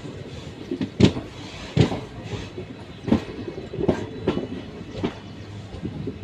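Train rolling through the station, its wheels clacking over rail joints: a string of sharp knocks at uneven spacing, about one a second, over a steady rumble.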